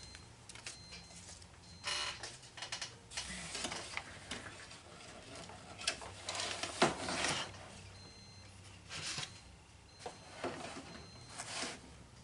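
Hands handling fabric and white stabilizer in an embroidery hoop, making intermittent rustling, scraping and light taps, with a few faint short high beeps.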